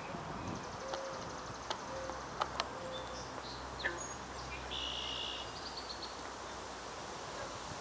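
Outdoor ambience with a steady background hiss, faint scattered bird chirps and a short buzzy note, a few sharp clicks in the first few seconds, and a low hum for a few seconds in the middle.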